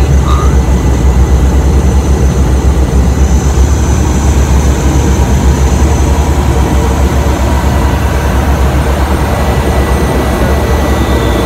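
Small propeller plane's engine and propeller running, a loud steady drone heard from inside the cabin, with a faint high whine over it.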